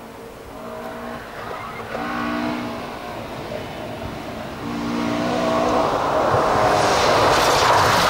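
Mk2 Ford Escort rally car approaching on a stage: its engine note comes in short steady spells at first, then swells into a loud, growing rush of engine and tyre noise as the car arrives close, loudest near the end.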